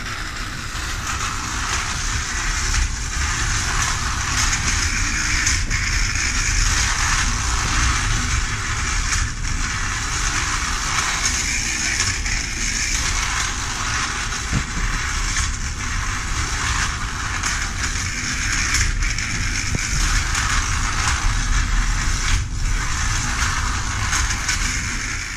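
Technofix tin clockwork shunting train running: the wound spring motor whirs and the tin wheels rattle steadily along the tin track, with occasional sharper clicks.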